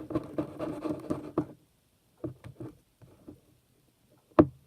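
Clear slime being stirred after Tide laundry detergent was added as activator, just starting to form: a quick run of wet, sticky clicks that stops after about a second and a half, a few scattered clicks, and one sharp click near the end.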